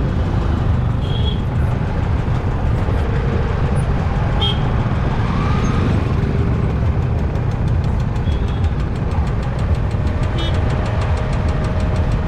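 Road traffic with a steady low rumble of engines and wind on the microphone, and short vehicle horn toots sounding about four times.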